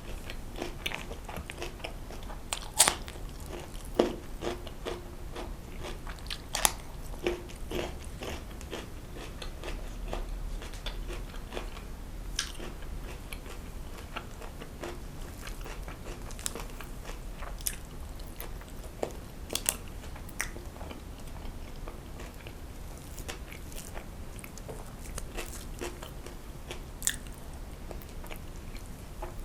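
Close-miked eating: steady chewing and biting of food, with irregular wet smacks and sharp crunchy clicks, the loudest about 3, 4, 7 and 20 seconds in.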